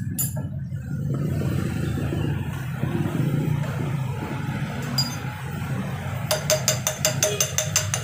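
A socket ratchet wrench clicking in quick, even strokes, about six clicks a second, starting a little past the middle, as a bolt on a motorcycle's front fork is turned. A steady low rumble runs underneath.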